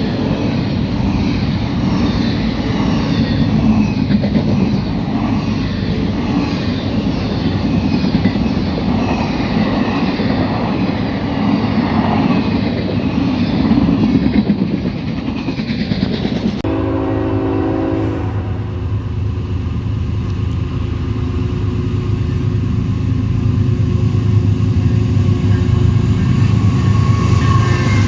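Norfolk Southern freight train passing: a steady rumble of wheels on rail, then a locomotive horn sounds one short chord blast about two-thirds of the way through. After it the low drone of the locomotive grows louder, and the horn starts again right at the end.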